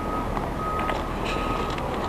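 Footsteps crunching on railway track ballast, with a high electronic beep repeating three times, about two-thirds of a second apart.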